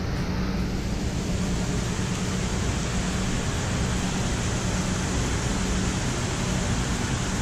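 Steady rushing of flowing creek water: an even, unbroken hiss with a low hum underneath.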